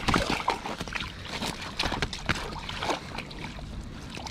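Water splashing and dripping in irregular short bursts as a netted trout struggles and is lifted out of a landing net at the lake surface.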